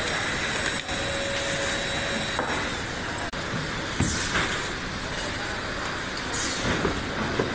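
Steady machine noise of a vacuum-cleaner assembly line, with a high motor whine in the first couple of seconds. A couple of brief swishes come about halfway through and again near the end.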